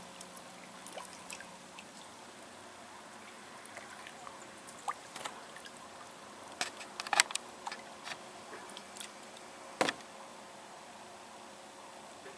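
Water dripping and small splashes around a kayak paddled slowly through still water, with scattered sharp clicks and knocks; the loudest knocks come about seven seconds and ten seconds in.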